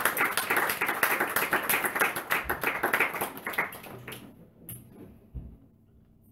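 A small audience applauding, the clapping thinning and dying away about four seconds in.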